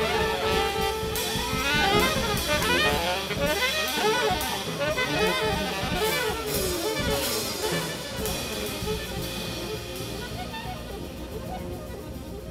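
Live jazz orchestra of saxophones, clarinet, trumpet, trombone, tuba, piano, bass and drums playing together, with many quick melodic runs over cymbals and bass. The ensemble grows gradually quieter over the second half.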